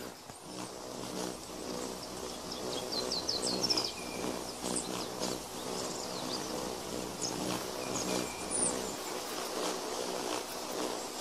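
Swordbill hummingbird hovering at a flower, its wings making a steady low hum. High bird chirps sound over it, with a quick run of them about three to four seconds in.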